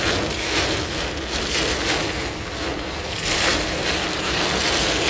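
A loud rushing noise of wind and rain on the microphone, swelling and fading every second or so.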